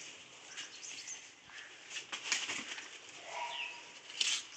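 Goats pulling at and chewing a bundle of jackfruit leaves: irregular rustling and crackling of the leaves, loudest near the end.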